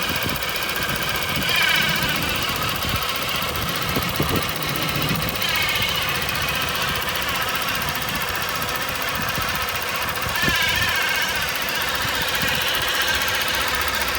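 Fiat 500 0.9 TwinAir two-cylinder engine running warm, with a screeching, grinding noise that wavers up and down in pitch and swells and fades every few seconds. The noise is undiagnosed: a new alternator and pulley have not cured it.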